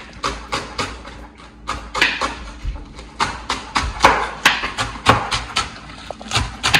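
Chef's knife chopping scallions on a wooden cutting board: sharp knocks of the blade on the board, about three a second, slightly uneven.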